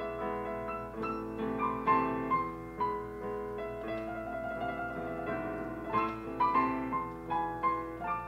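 Background piano music playing a melody of separate notes over held lower tones.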